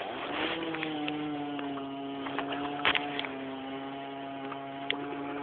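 A steady, even hum of a motor, settling onto one pitch just after the start, with a few light knocks over it, the loudest about three seconds in.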